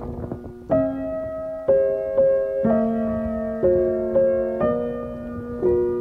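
Background piano music: a slow run of chords, one struck about once a second and left to ring out before the next.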